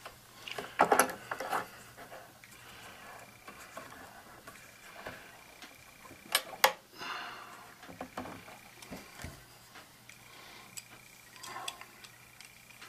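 Scattered clicks, clinks and knocks of metal air-rifle parts and hand tools being handled on a wooden bench, with a cluster about a second in and one sharp click about six and a half seconds in.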